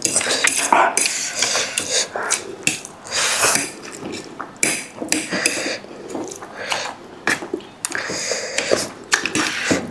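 Eating noodles close to the microphone: utensils clinking against a bowl amid irregular slurping and chewing noises.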